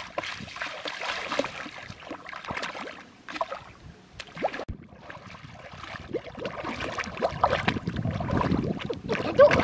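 Shallow muddy water sloshing and splashing unevenly, with scattered small splashes and clicks.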